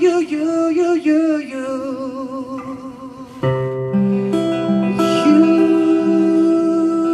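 Live male vocalist singing over guitar accompaniment, his voice wavering with vibrato. The sound dips briefly, then a new chord comes in about three and a half seconds in and he holds a long note with vibrato over it.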